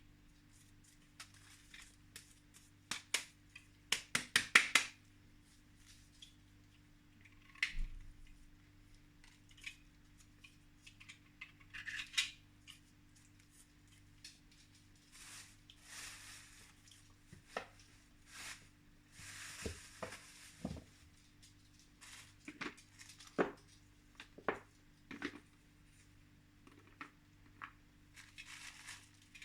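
Irregular taps, clicks and short scrapes of small hard objects being handled, with a quick run of sharp clicks a few seconds in.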